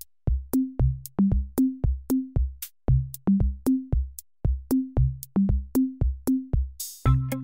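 Electronic background music: a drum-machine beat of low, pitched drum hits in repeated runs of three rising notes, with sharp clicks between them. Near the end a short cymbal swell leads into a fuller passage with more instruments.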